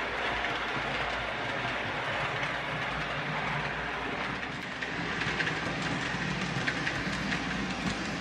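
Märklin HO model train, a Re 4/4 I electric locomotive hauling TEE coaches, rolling along the track with a steady running rumble. From about five seconds in, light sharp clicks come through on top of it.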